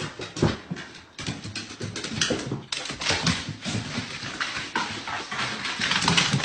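A dog vocalizing in a run of short, irregular sounds, as if answering back.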